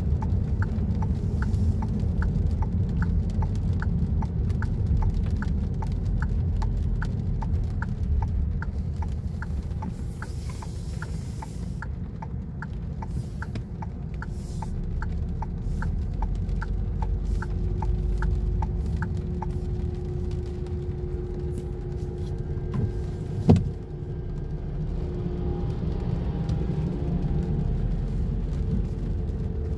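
Inside a moving car on a wet road: a steady low rumble of engine and tyres, with a turn-signal indicator ticking about one and a half times a second for the first two-thirds. Near the end a single sharp thump is the loudest sound, and faint steady hums rise as the car slows.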